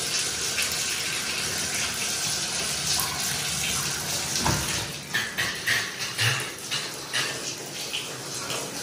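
Water running from a bathtub spout into the tub as a steady rush. About four and a half seconds in, the spout's diverter is worked and the flow breaks into uneven spurts and splashes; the water pressure is terrible.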